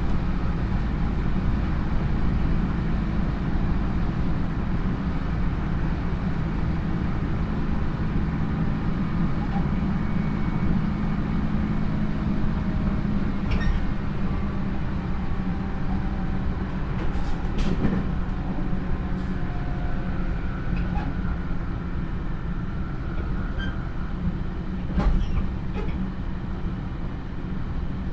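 JR 311 series electric train (motor car KuMoHa 311-2) running at speed, heard from inside: a steady rumble of wheels and running gear with faint whining tones. A few sharp clicks come through around the middle and once near the end.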